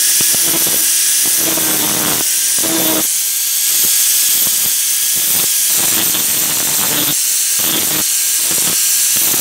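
Electric angle grinder running at full speed, its disc grinding the steel hammer head: a steady whine under a harsh, even hiss.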